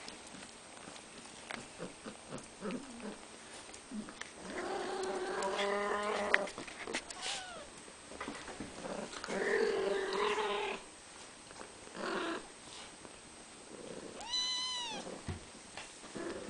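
Cats meowing: two long drawn-out meows, a short one, then a higher-pitched meow that rises and falls near the end.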